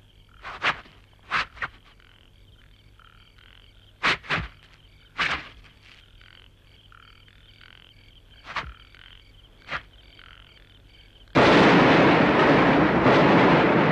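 Film soundtrack night ambience of frogs croaking, with a faint steady chirping bed and several sharp, loud croaks or clicks scattered through it. About eleven seconds in, a sudden loud, dense rushing noise sets in and drowns it out.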